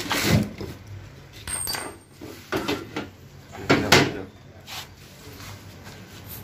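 Metal parts of a Toyota Soluna automatic transmission knocking and scraping as they are pulled apart by hand: the clutch drum and shaft and the transmission case. There are scattered clunks, with the loudest pair about four seconds in.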